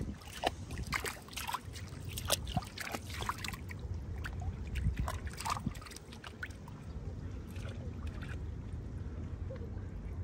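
Water splashing and sloshing in a run of small, sharp splashes for about the first six seconds, then calmer, over a steady low rumble of wind on the microphone.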